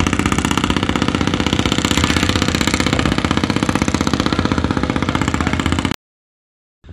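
Fishing boat engine running loud and steady with a rapid, even beat. It cuts off suddenly about six seconds in, leaving faint wind and water noise.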